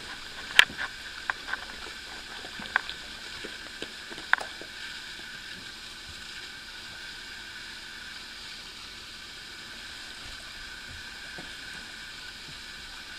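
A few sharp clicks and light plastic knocks in the first few seconds, the loudest less than a second in, then a steady background hiss of room noise.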